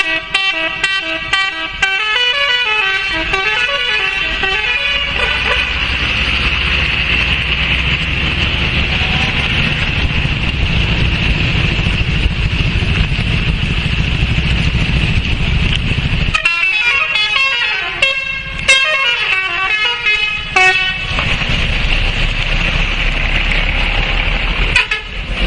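Bus 'telolet' multi-tone musical air horn playing a warbling up-and-down tune for about five seconds, then steady road-vehicle engine and traffic noise, with the horn tune again from about sixteen to twenty-one seconds and one more short blast near the end.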